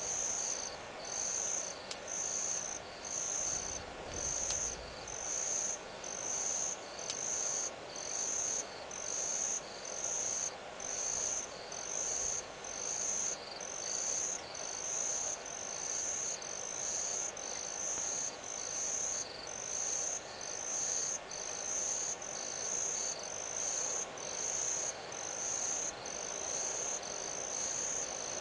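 Insects chirping in short, high, evenly spaced pulses a little faster than one a second, over a steady hiss of other night insects.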